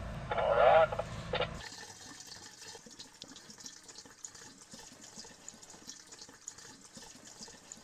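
Gasoline pouring from a plastic jerry can through its flexible spout into a fuel tank. It is a faint, steady pour that starts about a second and a half in.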